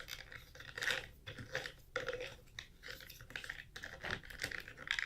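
Irregular light plastic clicks and scrapes from handling the parts of a Dyson DC65 vacuum cleaner.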